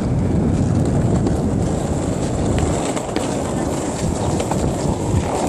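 Penny board's small plastic wheels rolling over asphalt: a steady rumble with a few faint clicks.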